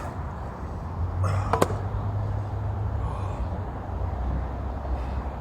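Sharp metal knocks as the heavy steel plate and magnet are handled: a short click at the start and a louder clank about a second and a half in that rings briefly, over a steady low rumble.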